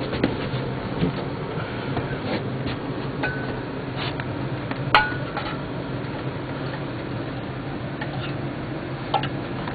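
Scattered metal clinks and taps from tools and engine parts being handled during an engine rebuild, the loudest about halfway through with a short ring, over a steady low hum.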